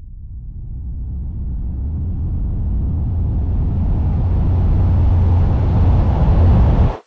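A deep, noisy rumble that swells steadily louder over about seven seconds, then cuts off suddenly near the end.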